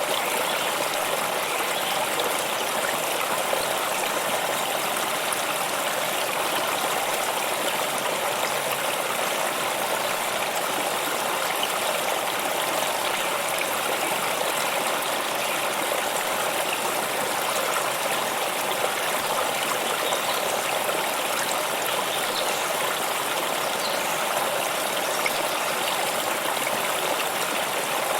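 Stream of water flowing steadily, an even trickling rush with no breaks.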